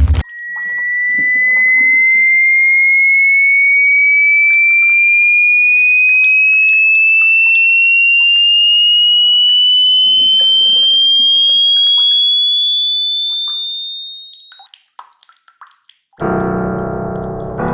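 A single pure electronic tone sweeping slowly upward in pitch for about fourteen seconds, swelling in at the start and fading out. Near the end, a keyboard sound with many tones sets in.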